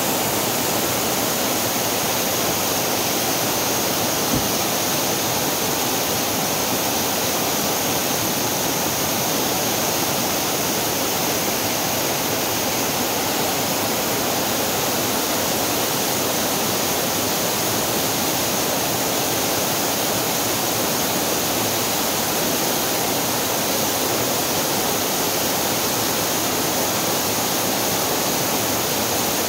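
Steady, loud rush of a rain-swollen waterfall pouring onto rocks and into a rocky stream below, heard up close.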